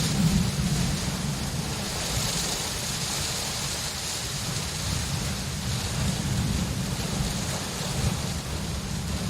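Steady rain hissing, with a continuous low rumble of distant thunder underneath.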